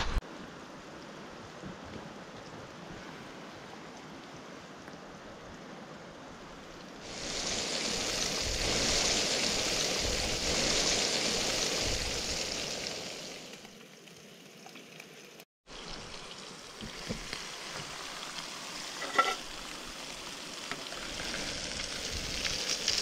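Trout and bass fillets frying with a steady sizzle. The sizzle swells much louder about seven seconds in, then eases off, and breaks off suddenly for a moment a little after fifteen seconds before resuming.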